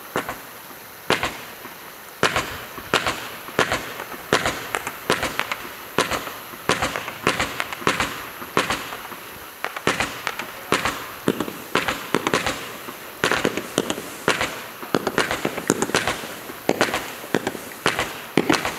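A low-noise 170-shot firework barrage cake firing shot after shot: a steady run of sharp pops, about two a second, often several in quick succession.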